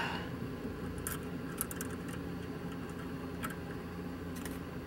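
A few light metallic clicks and ticks from small nuts, bolts and washers being worked off the power cowl vent actuator's mounting foot by hand, over a steady low hum.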